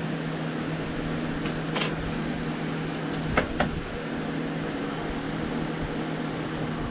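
Electric box fan running with a steady hum, with a few small clicks about two and three and a half seconds in.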